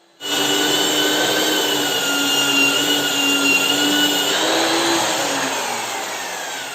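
Electric disc-type wall putty sander with dust extraction, running and sanding wall putty: a steady vacuum-like whine that starts abruptly. From about four seconds in, the pitch slides down and the sound fades slightly as the motor slows.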